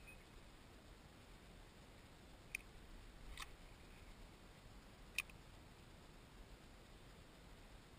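Near silence broken by three short, sharp clicks spread over a few seconds, the last the loudest.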